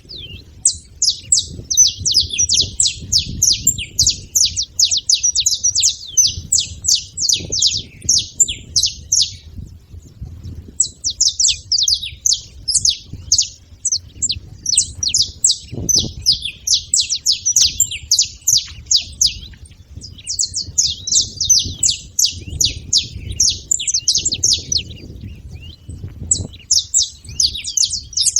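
Saffron finches singing: long bouts of rapid, sharp, high notes, broken by short pauses about every five to eight seconds, over a faint low rumble.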